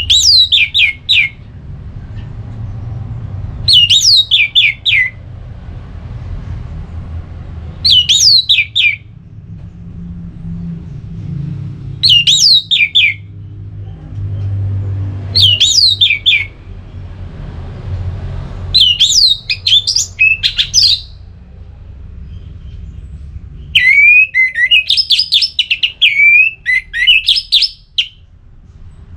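Orange-headed thrush singing in loud, open 'ngeplong' style: short phrases of quick whistled notes sweeping downward, repeated about every four seconds, with the last two phrases longer and more varied.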